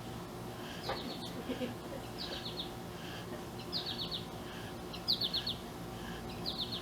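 A songbird repeating a short, high-pitched phrase of three or four quick notes about every second and a half, five times over.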